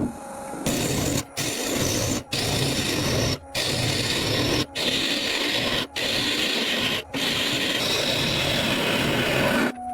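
A hand tool rubbing and rasping against wood in a run of short strokes, each cut off by a brief gap about every second, with a longer stroke near the end.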